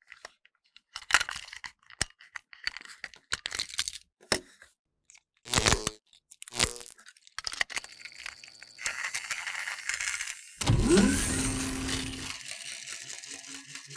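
Plastic clicks and knocks of a battery-powered toy train engine being taken apart, its body shell pried off the chassis. This gives way to a steadier noise, with a loud thump about ten and a half seconds in.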